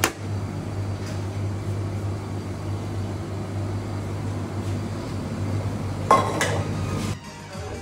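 Steady low kitchen hum, with a sharp knock at the start as a bowl of rice is turned out onto a metal serving tray, and a brief clatter of dishes about six seconds in. The hum cuts off about seven seconds in.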